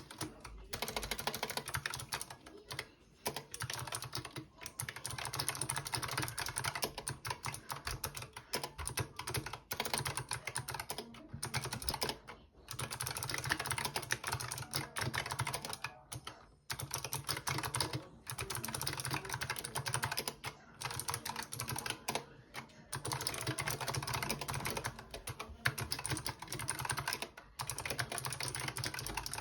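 Fast typing on a Razer Huntsman Mini 60% mechanical keyboard with optical switches: a dense run of key clicks, broken by brief pauses every few seconds.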